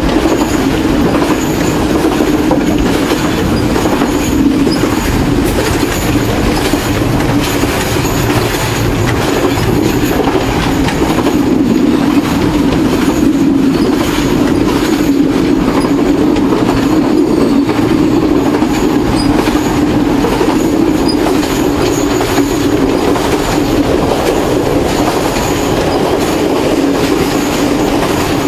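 Passenger train running along the track: the steady noise of carriage wheels on the rails, with a constant hum, unbroken throughout.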